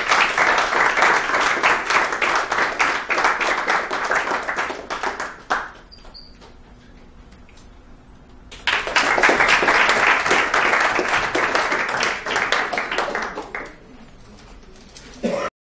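Audience applauding, dying away about five and a half seconds in; after a lull of about three seconds a second round of applause runs for about five seconds, then the sound cuts off just before the end.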